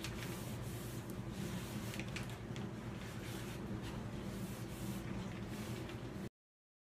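Tack cloth being rubbed by hand along sanded wooden cabinet frames to lift the last sanding dust before staining: faint rubbing strokes over a steady low hum. The sound cuts off suddenly about six seconds in.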